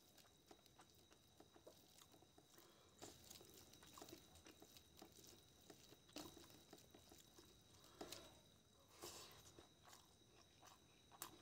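Faint, wet squishing and small clicks of fingers mixing rice into chicken curry on a steel plate, with a few louder rustles about eight and nine seconds in. A faint steady high whine sits under it.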